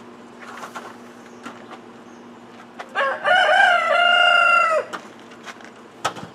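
A rooster crowing once, about three seconds in: a stuttering start, then a long held call lasting nearly two seconds. A couple of sharp knocks come before and after it, one near the start and one near the end.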